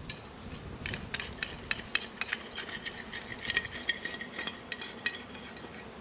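A tool scraping and clicking against a small black plastic dish in quick, irregular strokes while old bee fondant is cleared out of it. A thin squeak is heard in the middle of the scraping, which stops about five seconds in.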